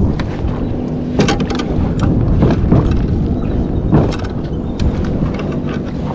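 Wind rumbling on the microphone over choppy water, with scattered clicks and knocks as a hooked sheepshead is handled and unhooked in a kayak.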